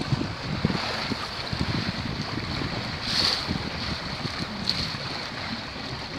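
Wind buffeting the microphone over the rush of water along the hull of a small sailboat under sail, with a louder wash of water about three seconds in.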